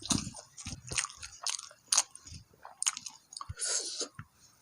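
Close-miked eating sounds: chewing and biting, with wet smacks and soft crunches at irregular intervals and a short breathy hiss a little past the middle.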